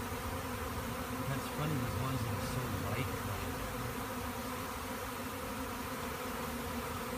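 A large swarm of honey bees buzzing steadily: the dense, even hum of many wings around the clustered swarm.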